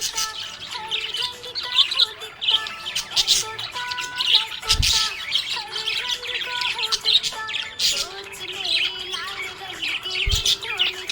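Several small parrots chirping and chattering without a break, the calls overlapping. Two low thumps come through, about halfway and near the end.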